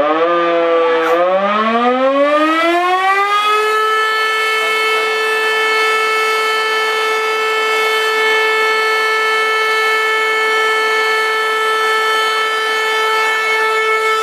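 Warning siren winding up, rising in pitch over about four seconds, then holding one steady tone.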